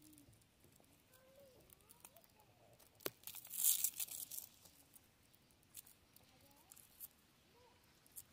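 A knife peeling the dry, papery skin off a red onion: a sharp click and then a short crackling tear about three and a half seconds in, with a few faint clicks of knife and fingers on the onion otherwise.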